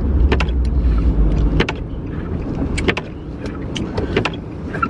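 Inside a car: a low engine and road rumble that drops away about one and a half seconds in, with a series of sharp clicks, some in quick pairs.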